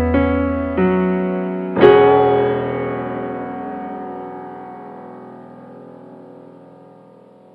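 Background music: held keyboard notes changing a couple of times, then a final struck chord about two seconds in that slowly fades away.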